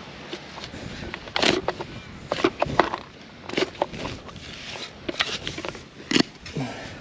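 A hand digging tool chopping and scraping into dirt: about six sharp strikes spaced roughly a second apart, with crackling soil between them.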